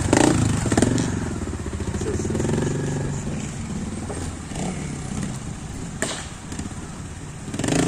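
Trials motorcycle engine running and revving up and down in short blips, with a sharp knock about a second in and another about six seconds in.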